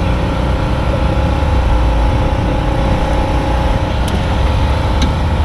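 Steady drone of an engine running, with a low rumble and a constant hum. Two light clicks come about four and five seconds in.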